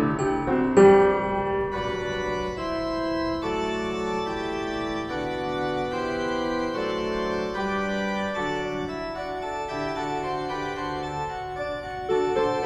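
Background music: slow keyboard chords of held, organ-like notes that change about once a second.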